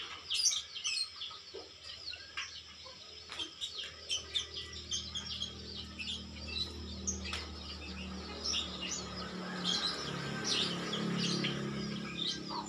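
Small birds chirping, many short high calls. A low steady hum sits underneath from about four seconds in.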